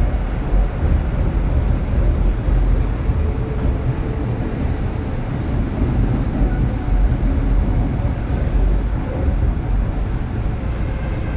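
Steady low rumble of a Kintetsu 3200 series electric train running along the track, heard inside the motor car.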